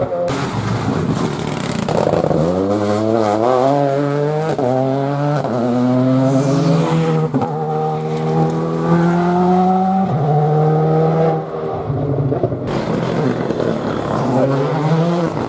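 Rally car engine at full throttle, revs climbing and dropping sharply at each gear change, several shifts in a row, then held steady and pulled up again near the end.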